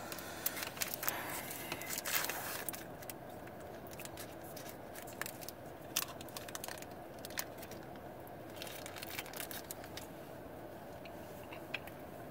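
Chocolate bar wrapper crinkling and tearing as it is opened, densest in the first few seconds, then occasional rustles and clicks over a faint steady hum.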